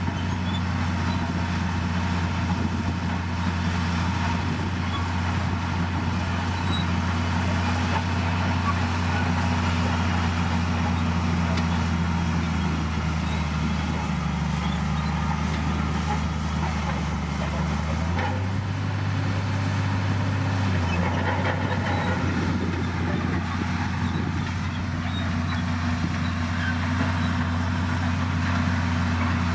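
Diesel engine of a D60P bulldozer running steadily under work, its note sagging slightly, then rising briefly about two-thirds of the way through before settling back.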